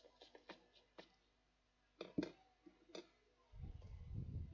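Light clicks and taps of a plastic headphone earcup and a small screwdriver being handled as the earcup is opened. Two sharper clicks come about two seconds in and another a second later, then a low rustling rumble of handling starts past the three-second mark.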